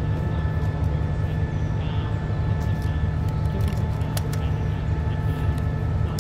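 Diesel train engine idling: a steady low drone with faint constant whining tones above it and a few small clicks.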